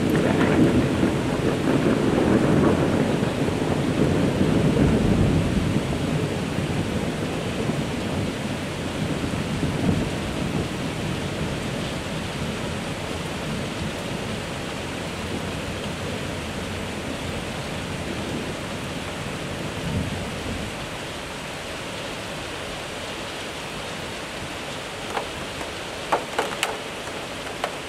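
Thunderstorm cloudburst: heavy rain hissing steadily, under a long low roll of thunder that fades away over the first six seconds or so. A few sharp ticks come near the end.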